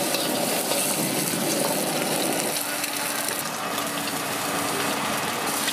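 Eggs frying in hot oil in a wok, a steady sizzle with the ladle working through them. A faint steady hum joins about halfway through.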